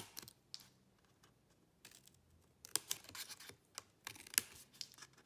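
Small scissors snipping through two layers of folded designer series paper to cut triangle notches: a few crisp snips at the start, then quicker runs of snips in the second half.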